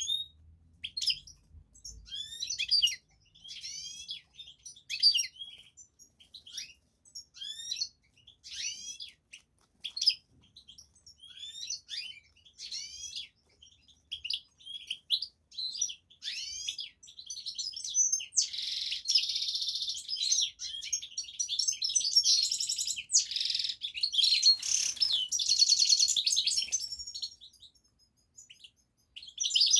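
Songbird singing: a series of short, high, downward-sweeping chirps, then about two-thirds of the way through a denser, continuous fast warbling trill.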